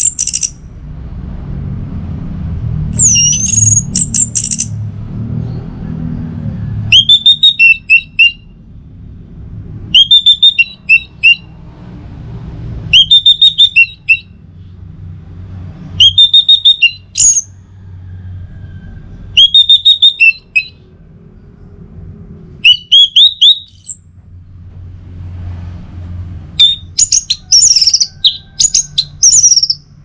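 Orange-headed thrush (Geokichla citrina) singing loudly: short phrases of quick repeated whistled notes about every three seconds, with a longer, more varied phrase near the end, over a low steady hum.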